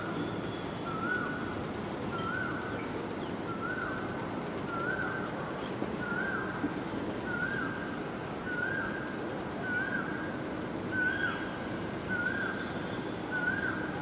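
A bird repeating the same short call note about a dozen times at a steady pace, roughly once every second, over a steady low rumble of wind or background noise.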